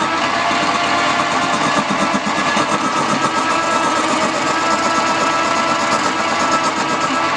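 Wood-turning lathe running steadily: a continuous motor hum and rushing noise with a couple of steady whining tones.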